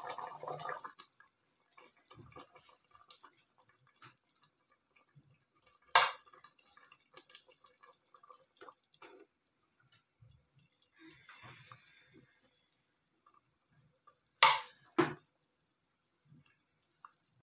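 Kitchen tongs working in a pressure cooker pot of broth, lifting out chicken pieces: small splashes and drips of liquid with light taps, and three sharp clinks, one about six seconds in and two close together near the end.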